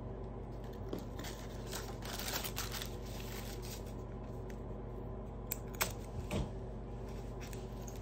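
Handling noise of a zip-around Loungefly wallet being turned over in the hands: rustling for a second or so, then a few sharp clicks near the middle, over a steady background hum.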